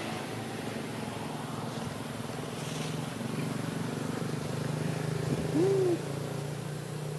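A baby pigtail macaque gives one short coo, rising then falling in pitch, about five and a half seconds in, over a steady low hum.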